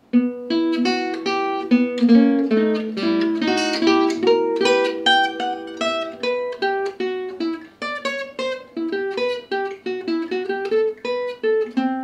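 Gypsy jazz acoustic guitar (Selmer-style, oval soundhole) playing a flowing single-note lick in E minor, with some notes ringing together, and ending on a held note.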